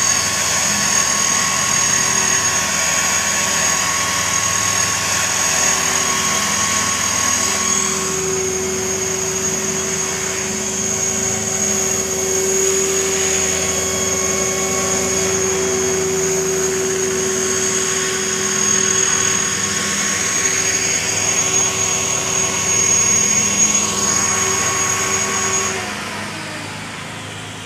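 Align T-REX 500 electric RC helicopter hovering: a steady, high-pitched whine of its motor, drive gears and rotor blades. Near the end the whine cuts off and the sound winds down as the helicopter sets down.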